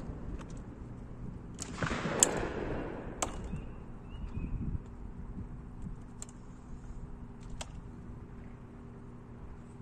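A shotgun shot about two seconds in, fading away, then a few sharp metallic clicks as the over-under shotgun is broken open and handled. Faint bird chirps.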